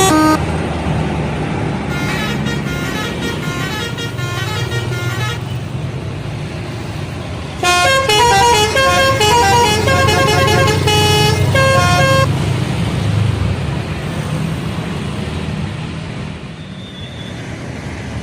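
A bus telolet horn plays a quick melody of stepping musical tones, first fainter from about two to five seconds in, then loud from about eight to twelve seconds in, over the steady rumble of bus engines and traffic.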